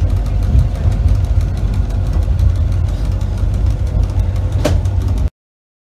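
Rigi cogwheel train running, a steady low rumble heard inside the carriage, with light clicks and one sharper click or squeak near the end. The sound cuts off abruptly about five seconds in.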